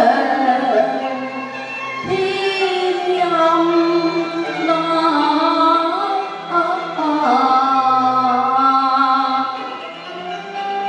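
Cantonese opera-style singing with held, wavering notes, over instrumental accompaniment.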